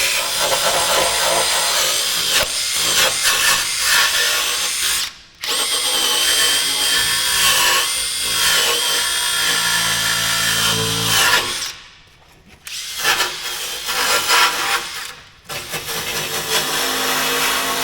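Angle grinder running and grinding steel, its high whine dipping in pitch under load. It stops briefly about five seconds in, and twice more in the second half.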